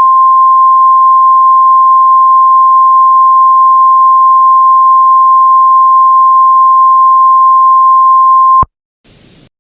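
Emergency Alert System attention tone: a single loud, steady tone of about 1 kHz, held for about nine seconds, that cuts off sharply near the end, followed by a brief faint burst of static. It signals that an emergency warning message follows.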